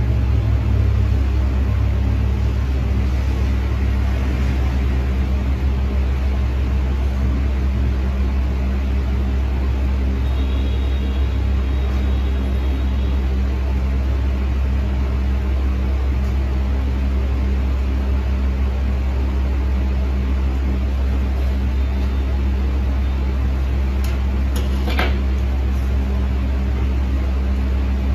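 A small motor humming steadily at a low pitch, with a couple of short sharp clicks near the end.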